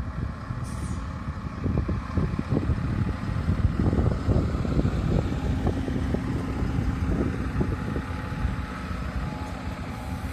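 Stadler Regio-Shuttle RS1 diesel railcar rolling past at low speed, its diesel engine running with a low rumble over the sound of the wheels on the track.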